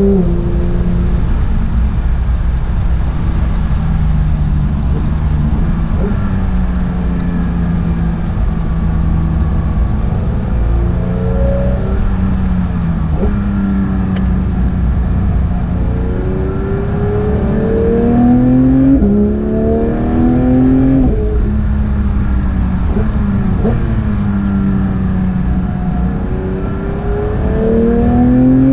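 Porsche 911 GT3 (992) 4.0-litre naturally aspirated flat-six heard onboard at speed, its pitch climbing under acceleration and falling off again, several times over, with quick PDK gearshifts.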